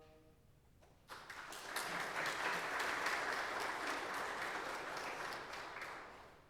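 Congregation applauding: hand-clapping starts suddenly about a second in, just after the last held brass chord dies away, and fades out near the end.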